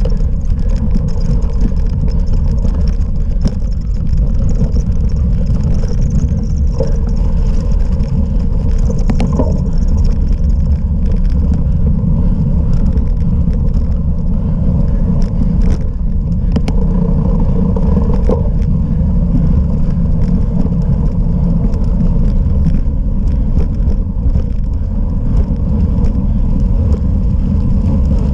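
Steady loud rumble of wind and tyres from a cyclocross bike being ridden, with scattered clicks and rattles.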